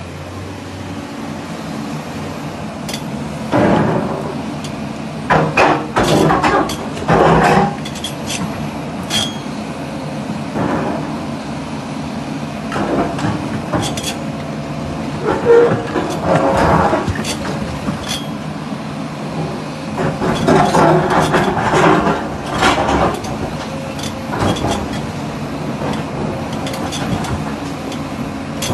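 The diesel engine of a Hidromek HMK500LC mining excavator runs steadily on its first start. Irregular metallic clanks and knocks come over it in short clusters.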